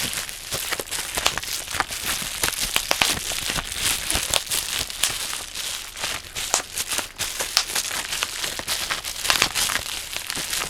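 Bubble wrap being crushed in hands wearing thick natural-rubber gloves: a dense, irregular run of sharp pops over the crinkling of the plastic sheet.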